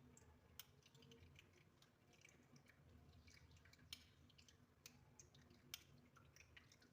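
Near silence with faint, scattered small clicks and ticks, irregular and several a second.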